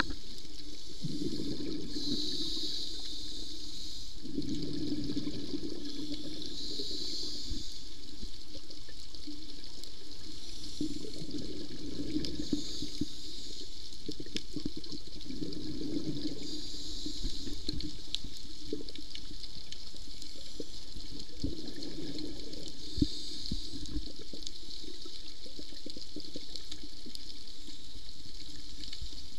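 Scuba diver breathing through a regulator underwater: a hissing inhale followed by a bubbling gush of exhaled air, repeating about every five seconds.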